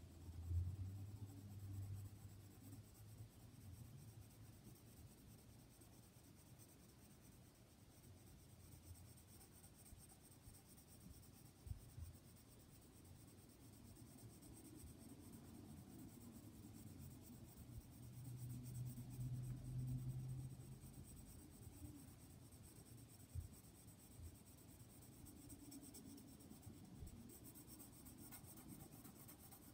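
Pencil shading on sketchbook paper: faint, continuous scratchy strokes of graphite colouring in a drawing. A low hum rises twice, near the start and about two-thirds of the way through.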